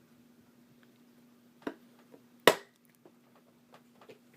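Storage toolbox being handled: two sharp clicks a little under a second apart, the second louder, with fainter taps around them, over a faint steady hum.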